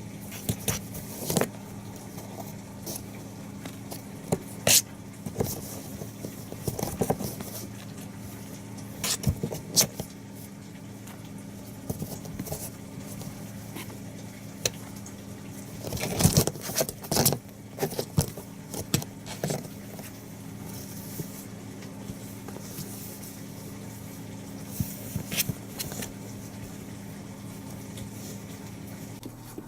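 Kittens playing: scattered light taps, bumps and scrapes, busiest about sixteen to eighteen seconds in, over a steady low hum.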